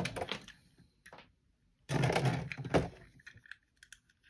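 Plastic blister packaging crackling and cracking as it is popped open, followed by a few light clicks of the plastic parts being handled.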